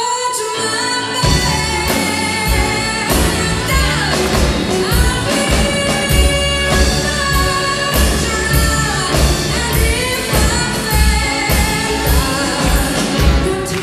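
A woman singing live with a band behind her. The bass and drums come in about a second in, with regular drum and cymbal hits under the voice.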